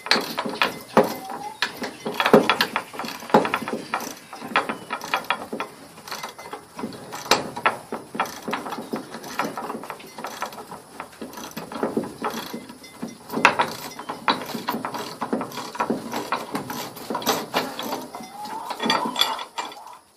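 Hand ratchet wrench clicking in quick runs as it backs lag bolts out of a gate hinge set in oak.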